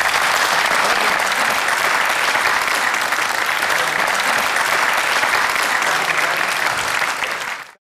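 Applause from a roomful of people, steady clapping that stops abruptly near the end.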